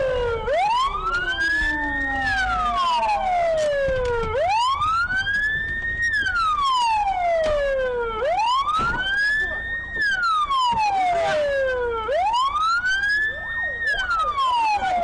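Police siren in wail mode: one tone climbing for about two seconds, then sliding back down for about two, over and over, about four cycles in all.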